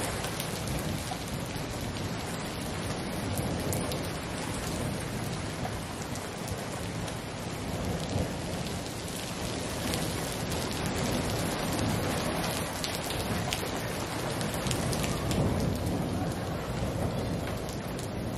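Heavy rain pouring down steadily, with thunder rumbling low underneath.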